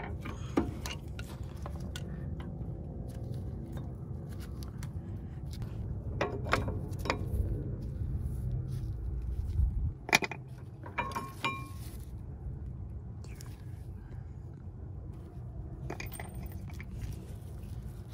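Metal clinks and scrapes as a screwdriver pries the worn brake pads out of a Mercedes W124's brake caliper, with a few sharp clicks, the loudest about ten seconds in.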